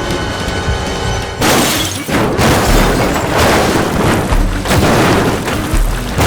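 Background music with loud crashing and booming sound effects. The effects come in about a second and a half in and repeat several times, each with a deep thud.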